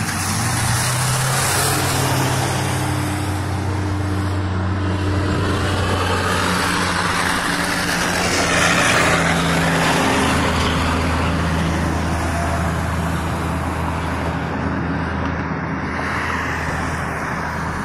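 Road traffic passing close on a wet road: vehicle engines running with tyre hiss, swelling to the loudest point about eight to ten seconds in as a heavy dump truck goes by, then easing.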